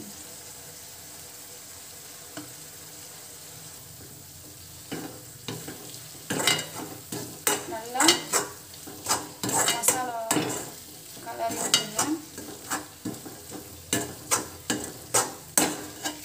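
Onion-tomato masala with spice powders frying in a metal kadai with a steady sizzle. From about five seconds in, a steel slotted spoon scrapes and knocks against the pan as the masala is stirred, about two strokes a second.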